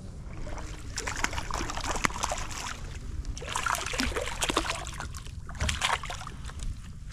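A small hooked fish splashing at the water's surface beside a kayak while it is landed by hand, in several bursts about a second, three and a half seconds and six seconds in.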